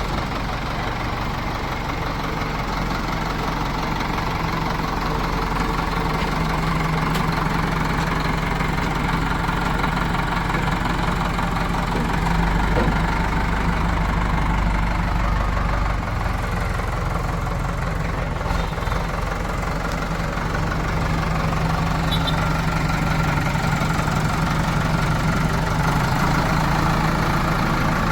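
Diesel engines of a backhoe loader and tractor running steadily, with the low engine note swelling briefly about twelve seconds in.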